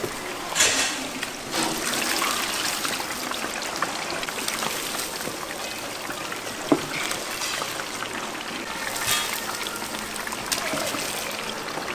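Chicken deep-frying in hot oil in a cast-iron cauldron (gamasot): a steady, dense crackling sizzle, with a few sharper clicks.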